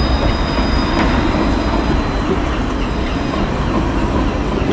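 Luas light-rail tram running close by with a low rumble, its wheels squealing on the rails in a high steady tone that fades out about two seconds in and briefly comes back about a second later.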